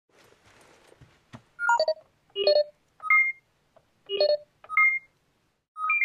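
Electronic keypad beeping: six short runs of quick tones at different pitches, each run a few beeps stepping up and down in pitch, like a sci-fi control panel being keyed in.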